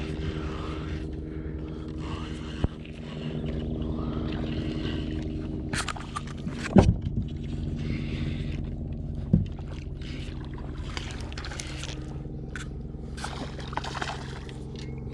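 A boat motor hums steadily at constant speed. Sharp knocks on the boat come through now and then, the loudest about seven seconds in.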